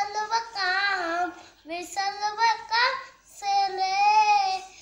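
A young boy singing a nursery rhyme unaccompanied, in three short phrases with the last note held.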